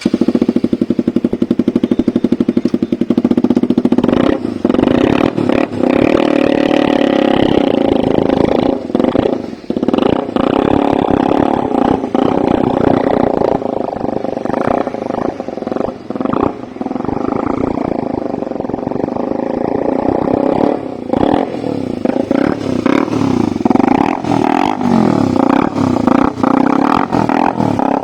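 Loud motorcycle exhaust: engines running hard with rapid firing pulses, the pitch rising and falling as they are revved.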